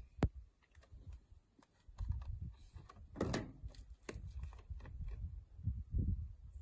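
Scattered clicks and knocks of a plastic bottle and fuel cap being handled at a truck's diesel tank while additive is added, over a low, uneven rumble. A sharp click comes right at the start and a brief louder rustle a little past three seconds.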